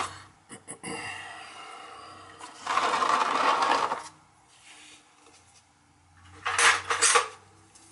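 Metal drip pan being slid and scraped across a concrete floor under an oil tank, with clanks and knocks as it is handled; the longest, loudest scrape comes about three seconds in, and a shorter clatter near the end.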